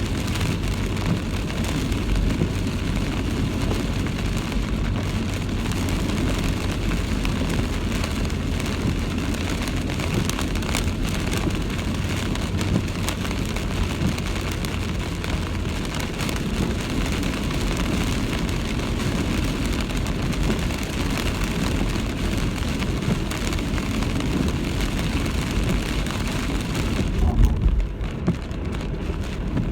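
Typhoon wind and heavy rain making a loud, steady rushing noise, with a low steady hum underneath through the first half. The high hiss drops away suddenly near the end.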